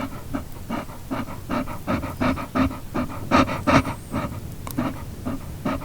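A dog panting in quick, rhythmic breaths, about three a second, a little louder in the middle.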